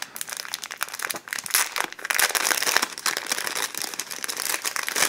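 Plastic packaging crinkling and rustling in the hands as it is opened, a steady run of irregular small crackles.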